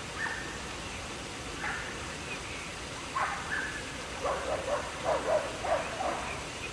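Waterfall rushing steadily, with short animal calls over it: a few scattered ones, then a quick run of them in the second half.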